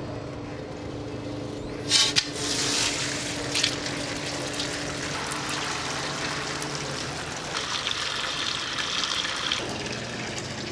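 Water from a garden hose splashing into the empty stainless-steel perforated basket of a 150-quart crawfish boiling pot as it starts to fill. The flow starts suddenly about two seconds in and then runs steadily.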